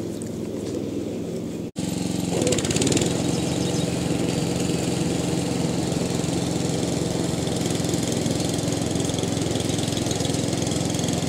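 A small engine running steadily, with a brief break near two seconds in.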